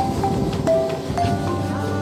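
Background music: held melodic notes that change about every half second over a steady low bed.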